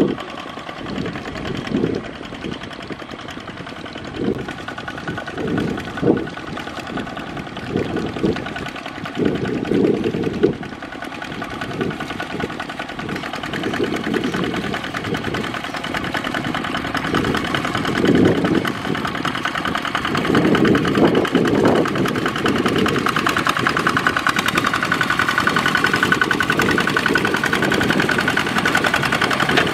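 Kubota ZT155 walking tractor's single-cylinder diesel engine running under load as its cage wheels churn through paddy mud, with irregular lower surges through the first two-thirds. It grows louder and steadier in the last third.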